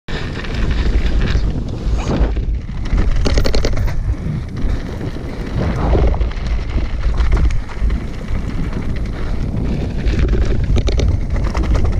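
Wind rushing over an action camera's microphone as a mountain bike descends a dirt and gravel singletrail, with tyre noise on the loose surface. The bike clatters and rattles over bumps in clusters, about three seconds in and again near the end.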